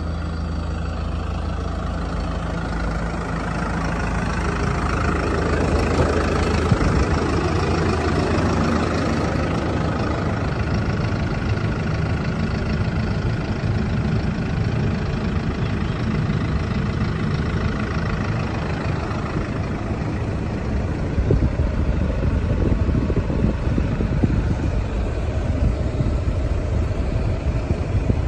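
Hino 300 Series truck's diesel engine idling steadily, heard first from beside the truck and then from inside the cab, with a few light knocks near the end.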